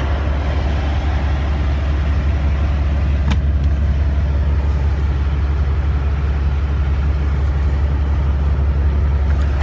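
Diesel semi-truck engine idling, a steady low rumble, with a single click about three seconds in.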